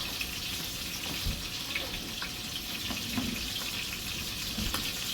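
Breaded rabbit frying in hot oil: a steady sizzling hiss with small scattered crackles.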